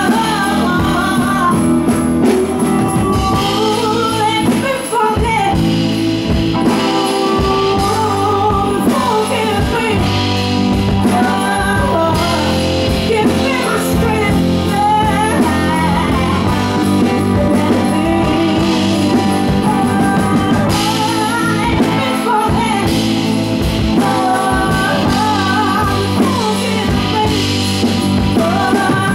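A woman singing into a microphone over a live band with guitar.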